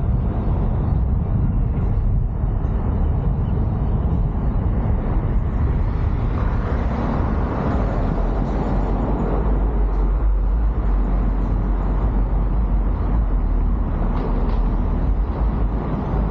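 Road noise from a car driving on a city street: a steady low rumble of engine and tyres, swelling for a few seconds about halfway through.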